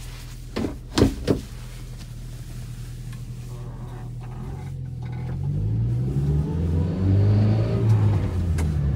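Subaru Sambar kei truck's small engine running, with three sharp clunks close together about a second in; from about five seconds in the engine grows louder and rises in pitch as the truck picks up speed, then holds.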